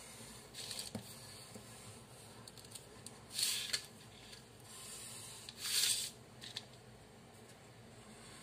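Paper being handled and drawn on with a felt-tip marker: a few short scratchy rustles, the two loudest about three and a half and six seconds in, each lasting about half a second, with fainter ones about a second in.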